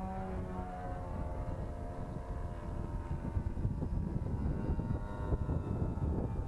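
Nitro glow engine of a radio-control model airplane running in flight, heard from a camera on the plane with heavy wind rumble on the microphone. The engine note sinks a little, then climbs again near the end.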